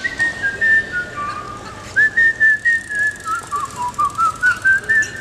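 A whistled tune: a single clear whistle holding a few long notes, then from about two seconds in a quick run of short notes that steps down in pitch and climbs back up, over the steady murmur of a large crowd.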